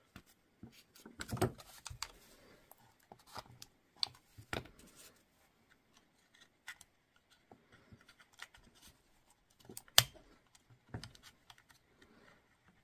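Light plastic clicks and scrapes as a white plastic battery-level indicator piece is worked onto the edge of the circuit board inside a Makita 18V battery housing, with the sharpest click about ten seconds in.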